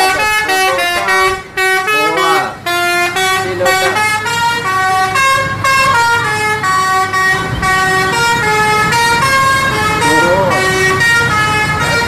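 Indonesian tour bus's 'telolet' multi-tone air horn playing a quick tune, one short held note after another at changing pitches, with two brief breaks early on.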